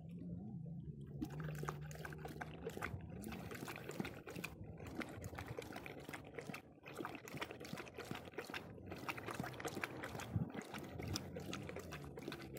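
Large dog lapping water from a puddle: a quick, steady run of wet laps and small splashes that starts about a second in.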